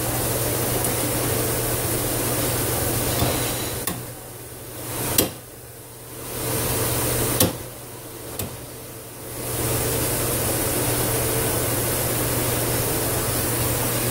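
Steady hiss of steam through a Dunham No. 1 steam trap on a test rig, which still lets a little steam blow by past its imperfect, century-old seat. About four seconds in the hiss drops away for several seconds, broken by a few sharp clicks, then comes back at full strength.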